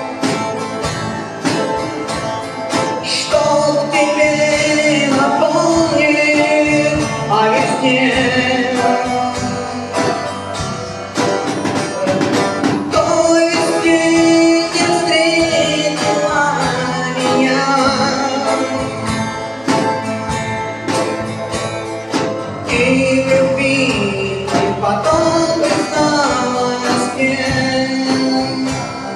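Live Russian rock band music: electric guitar with band accompaniment, a bending melodic lead line carrying on over it.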